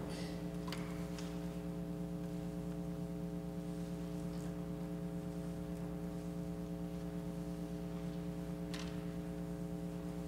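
A steady hum of several fixed low tones, unchanging throughout, with a few faint clicks about a second in and again near the end.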